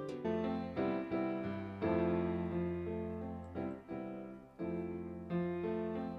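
Piano music: chords struck one after another, each ringing and fading before the next.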